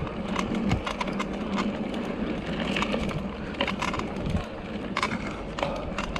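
Bicycle suspension squeaking with short, sharp squeaks about every half second while the bike is ridden, over tyre and wind noise. The rider takes it for a suspension that has gone too dry in the heat.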